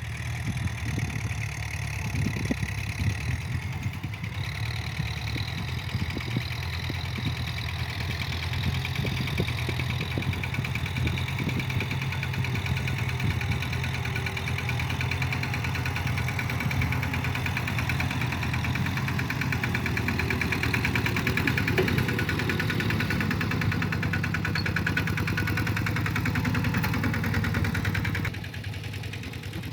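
Kubota tractor's diesel engine running steadily, dropping somewhat in level about a second and a half before the end.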